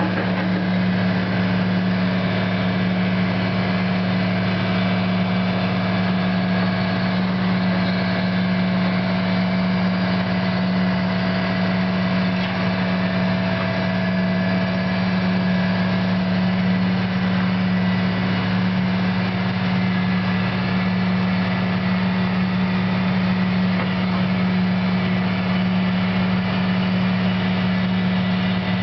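Diesel engine of a CAT 315 hydraulic excavator running at a steady pitch while the machine works its bucket through loose dirt.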